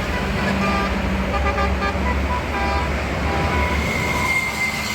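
A bus's basuri telolet horn playing a quick tune of short, changing notes over the low rumble of the bus engine. A single high, held tone slowly rises in near the end.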